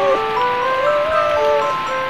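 Background music: a simple melody of held notes, one after another, over a steady hiss.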